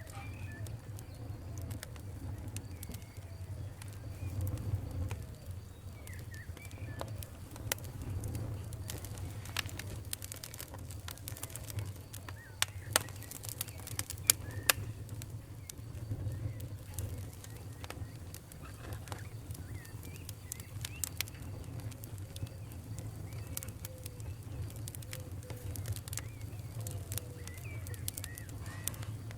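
Wood fire crackling in a fireplace: a steady low rumble with irregular sharp pops and snaps, a cluster of louder pops about halfway through, and faint short squeaky whistles now and then.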